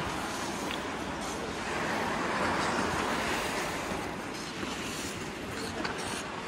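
Goalie leg pads and skates sliding and scraping across rink ice: a steady hiss that swells a couple of seconds in.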